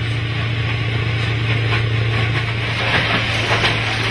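Rail track maintenance machine working the ballast: its engine runs with a steady low hum while the ballast plough scrapes the stones along, with scattered clicks of rattling stones.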